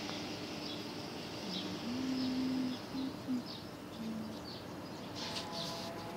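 Small birds chirping in short high notes, with a dove cooing in low held notes about one and a half to four seconds in.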